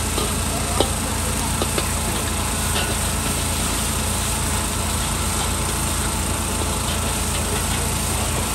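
Char koay teow being stir-fried in a wok over a fan-blown charcoal stove: a steady roar from the fire and blower under the frying, with the metal spatula scraping and clacking against the wok now and then.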